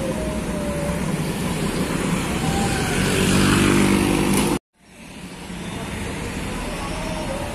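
Road traffic passing close: the engine drone of a large truck and motorcycles, with an engine growing louder about three seconds in. About two-thirds of the way through the sound cuts out completely for a moment, then comes back as quieter traffic noise.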